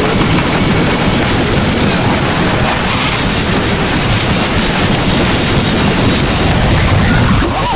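Harsh noise music: a loud, dense, unbroken wall of distorted noise across all pitches, heaviest in a low rumble, with a brief dip just before the end.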